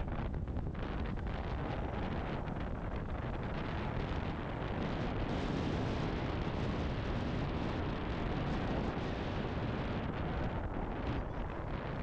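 Wind buffeting the microphone: a steady rushing noise, heaviest in the low end, that swells and eases slightly.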